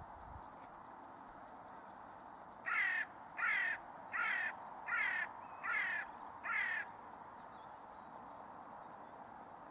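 A crow cawing six times in an even series, about one caw every three-quarters of a second.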